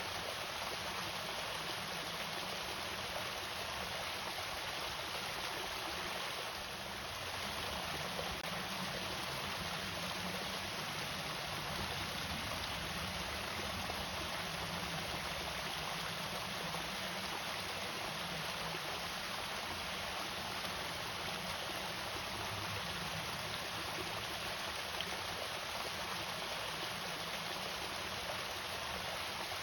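Water spilling steadily over a small irrigation waterfall: a continuous, even splashing.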